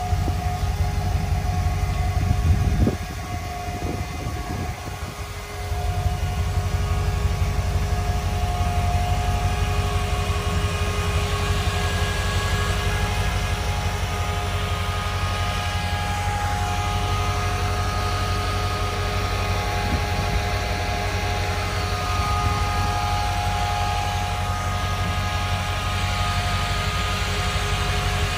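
Engine idling steadily, a continuous low drone with a few steady tones over it. It is briefly quieter for a couple of seconds about three seconds in.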